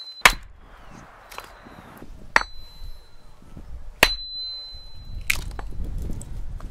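Hatchet strikes while splitting firewood: five sharp, irregularly spaced blows, two of them leaving a clear high metallic ring.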